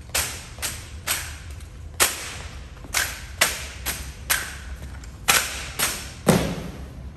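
A drill team marching and handling drill rifles: sharp slaps, knocks and stomps, about a dozen cracks at irregular half-second to one-second spacing, echoing in a large hard-floored hall. The heaviest, with a deeper thud, comes about six seconds in.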